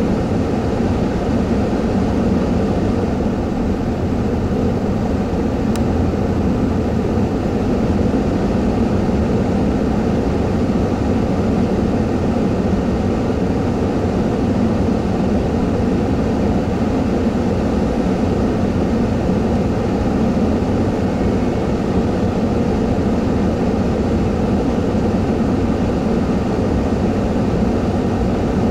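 Steady low rumble of an idling vehicle, heard from inside its cab, unchanging throughout.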